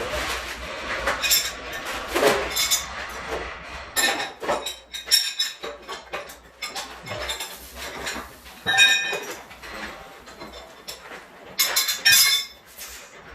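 Irregular metallic clinks and knocks, with brief ringing, of metal tools or parts being handled and set down.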